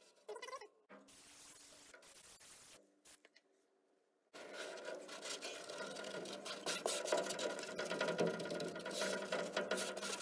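Hands rubbing and pressing adhesive-backed carpet against the inside wall of a steel gun cabinet, a continuous scratchy rubbing from about four seconds in. A soft hiss comes first, in the opening seconds.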